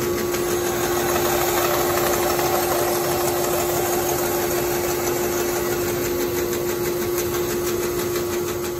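Rikon 14-inch bandsaw running with a steady hum while its blade cuts a mahogany bowtie blank pushed through on a sled jig. The hiss of the cut swells for a few seconds about a second and a half in.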